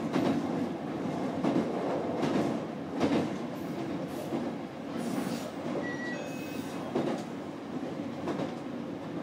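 JR Kyushu electric commuter train running along the line, heard from inside the front car: a steady rumble of wheels and running gear, with short knocks as the wheels pass over rail joints every second or two.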